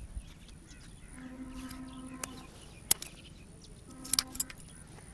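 Barber's scissors cutting hair in a few sharp snips, with two short pitched hums in between.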